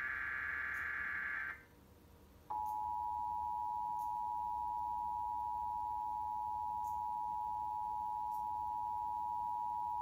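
Emergency Alert System broadcast over a TV: the end of a SAME header data burst cuts off about a second and a half in, and after a second's pause the EAS two-tone attention signal (853 and 960 Hz) sounds steadily through the rest.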